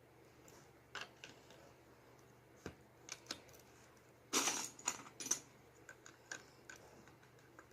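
Plastic Lego bricks clicking and clattering as they are handled and pressed together: scattered single clicks, with a longer rattle of bricks a little past halfway.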